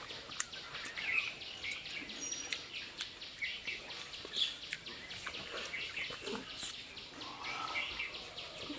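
Wet chewing, slurping and lip-smacking of peeled mandarin orange segments being eaten straight off the plate by mouth, many small clicks in quick succession, with birds chirping in the background.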